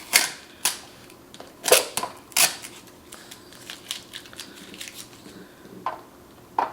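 Sharp plastic clicks and snaps from handling the parts and packaging of a Ninja Foodi multicooker. There are five loud ones in the first two and a half seconds, then lighter ticks and two more snaps near the end.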